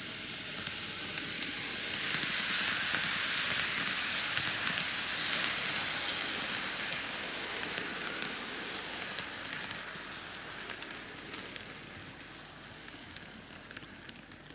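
N-gauge model train, a Microace Keio 9000 series set, running past on model railway track. It makes a steady crackling hiss of wheels on rails with scattered clicks. The sound swells in the first couple of seconds, is loudest for a few seconds, then fades as the train moves on.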